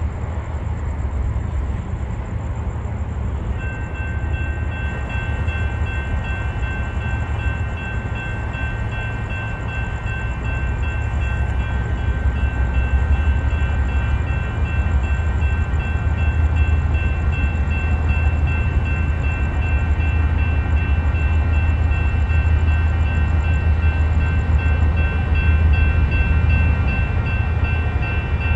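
Union Pacific diesel locomotive running slowly toward the listener, its engine a steady low rumble that gets gradually louder. From about three and a half seconds in, a bell rings steadily over it.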